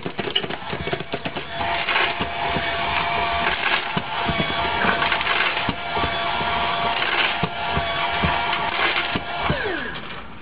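Automatic pet feeder's motor running with a steady whine over the clatter of dry food, then winding down near the end, its pitch falling.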